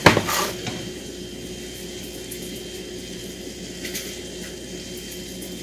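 A sharp knock, then a steady low hum with a faint high hiss from a running kitchen appliance motor, with a few faint ticks near the end.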